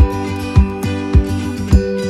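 Background music with a steady beat of low thumps about every half second, under held and plucked notes.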